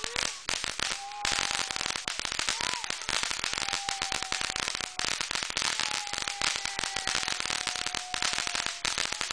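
Ground fountain firework spraying sparks: a dense, rapid crackle and hiss, with a faint thin whistle running under it.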